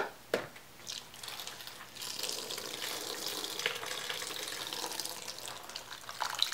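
A couple of plastic knocks at the start, then a steady stream of sudsy oven-cleaner solution being poured out of a plastic tub, beginning about two seconds in and stopping near the end.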